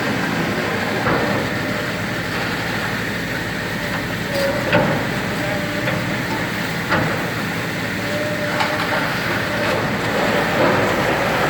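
Heavy machinery running steadily, with a few sharp metallic clanks and knocks, the loudest about halfway through.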